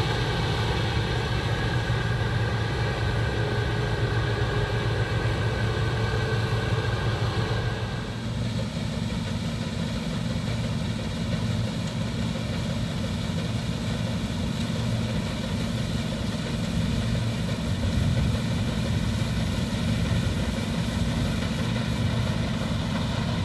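New Holland TX66 straw-walker combine harvester running steadily while cutting oilseed rape. About eight seconds in, the higher tones fall away and a steady low engine drone carries on.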